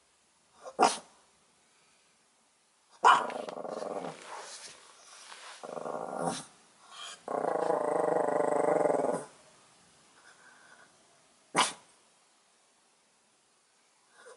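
Small dog barking sharply three times, about a second in, at about three seconds and near the end, with growling between the barks, the longest growl lasting about two seconds in the middle.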